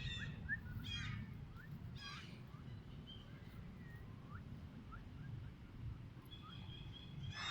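Animal calls: three harsh calls about a second apart, then scattered short chirps and whistles, and another harsh call near the end, over a steady low rumble.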